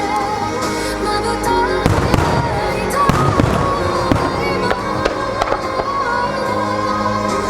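Starmine fireworks from Yamazaki Enka bursting over the show's accompanying music, with bangs in quick succession that grow densest about two to four seconds in.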